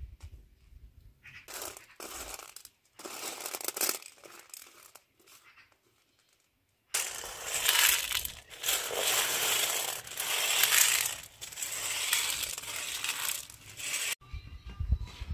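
Dried chickpeas and white beans rattling on metal: short bursts as they are pushed across a stainless steel tray, then, about halfway through, a long continuous rattle lasting about seven seconds as they are tipped and swept from the tray into a metal pot.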